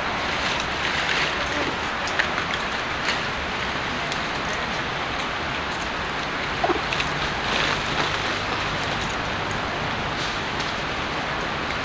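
A steady outdoor hiss, like running water, with a few faint clicks and taps.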